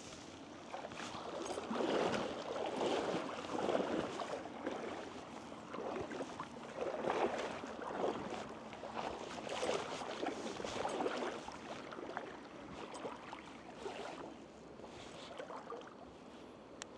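Water sloshing and splashing in surges about once a second: wading steps through a shallow stream in waders, fading in the last few seconds.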